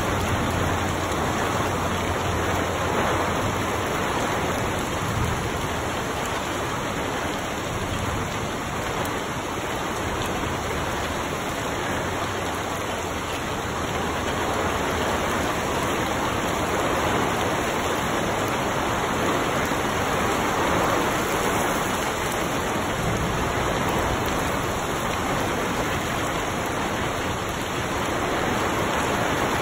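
Rainstorm: steady rain falling on leafy trees and grass, an even hiss without breaks or thunder.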